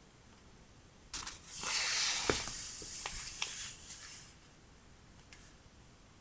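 Stationery or packaging handled up close: a rustle starting about a second in and lasting roughly three seconds, with a few small clicks in it.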